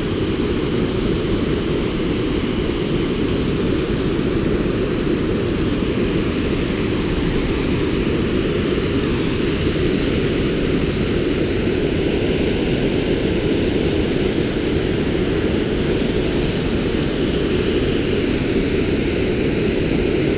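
Waterfall: whitewater pouring over rocks, a steady loud rush of water noise, deepest in the low range.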